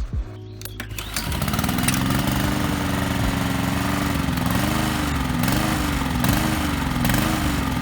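Petrol lawnmower engine picking up speed about a second in, then surging, its speed rising and falling about every two-thirds of a second. This is the uneven running the owner later traces to a lever on the carburettor going back and forth.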